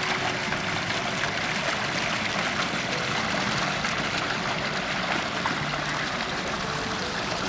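Steady sound of flowing water, an even rush with no breaks.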